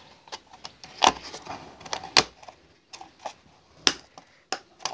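Irregular clicks and knocks of an LED bulb's parts being handled as its round LED board is pressed into the aluminium heatsink housing.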